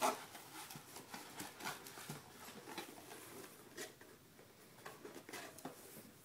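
Faint, irregular rustling and light taps of hands handling a small cardboard box and rummaging through styrofoam packing peanuts in a shipping carton.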